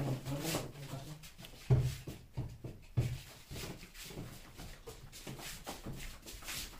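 Paintbrush and sponge rubbing in quick, uneven strokes over a painted gypsum board, with a few soft knocks.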